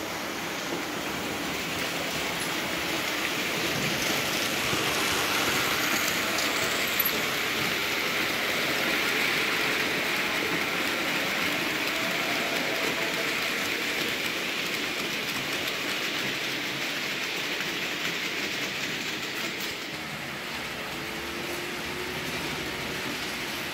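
Märklin model trains running on their layout track: a steady whirring rush of small wheels and motors, with a faint hum underneath, swelling for the first several seconds and then slowly easing. One sharp click about seven seconds in.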